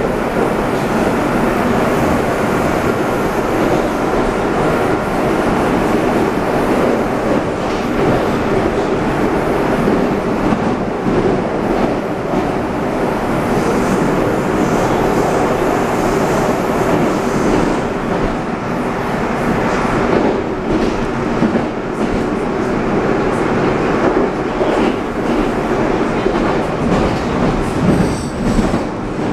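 Interior of a Rusich 81-740/741 metro train running at speed: a loud, steady noise of wheels on rail and running gear, with track clicks.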